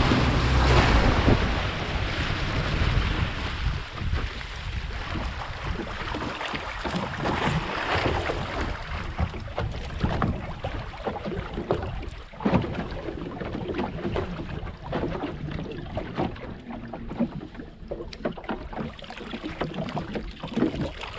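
Small open boat under way across a choppy bay for the first couple of seconds: motor rumble under the rush of spray and wind on the microphone. Then it goes quieter, with water slapping the hull and short splashes as a crab pot's float line is hauled in by hand.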